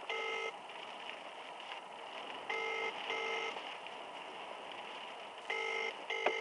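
Mobile phone on speakerphone playing a telephone ringback tone: three double rings, each two short tones in quick succession, repeating about every three seconds while the call goes unanswered.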